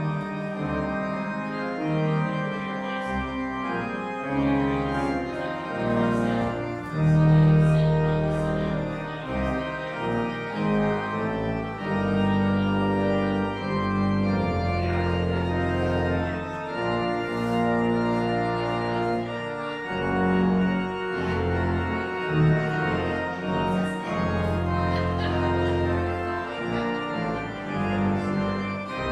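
Church organ playing: full sustained chords over a deep bass line, the harmony changing every second or two.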